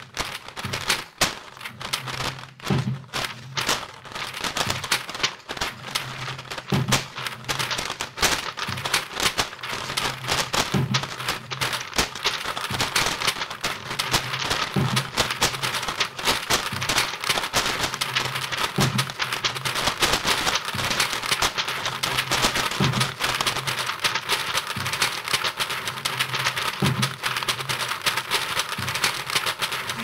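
Lo-fi experimental music built from desk sounds and voice through a laptop microphone: a dense, continuous crackle of clicks over a steady low hum, with a low thud about every four seconds.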